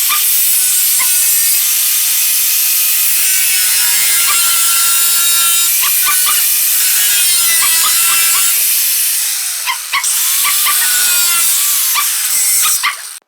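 Welding on car-body sheet steel, with a steady crackling sizzle as an inner rocker panel is welded in. The sound breaks off briefly about ten seconds in, resumes, and cuts off suddenly at the end.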